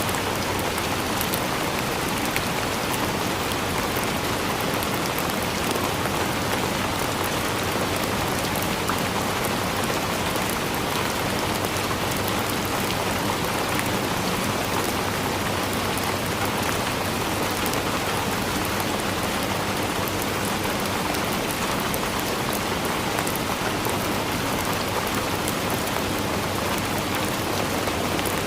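Steady rain falling, an even hiss with scattered drop ticks and no change in level.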